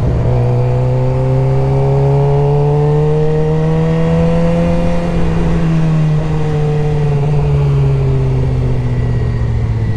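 Suzuki GSX-R 600's inline-four engine running under way in gear, its pitch rising slowly for about five seconds, then easing off and slowly falling.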